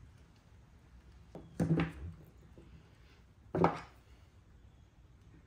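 Two sharp knocks of hard objects on a wooden workbench, about two seconds apart, over faint room tone.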